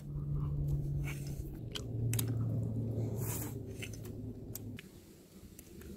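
A man chewing a mouthful of stir-fried webfoot octopus and pork with rice, with short wet smacking clicks, over a low steady hum that fades out near the end.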